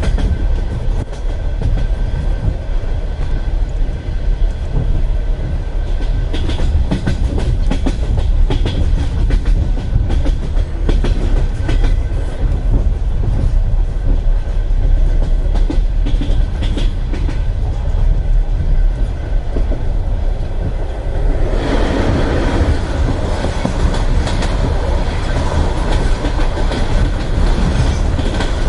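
Wheels of a Russian Railways passenger carriage clicking over rail joints with a steady running rumble, heard from inside a sleeping compartment. About 21 seconds in, the rumble grows louder and harsher.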